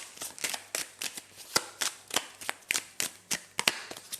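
A deck of tarot cards being shuffled by hand: a quick, uneven run of sharp card slaps and snaps, about three or four a second.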